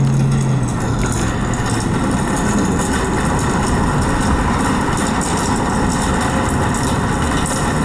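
Steady engine and road noise of a car, heard from inside the cabin; a low hum fades out in the first second.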